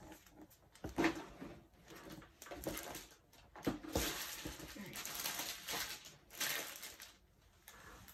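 Packaging of a diamond-painting kit being handled: plastic wrapping crinkling and rustling in irregular bursts, with small clicks and knocks, most continuous in the second half.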